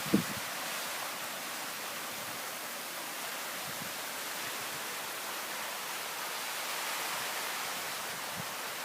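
Steady hiss of heavy rain coming down. There is a brief thump right at the start.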